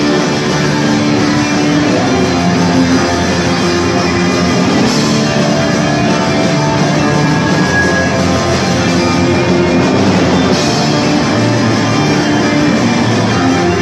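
Live rock band playing loud on electric guitars, bass and drum kit, heard from the floor of a large warehouse hall.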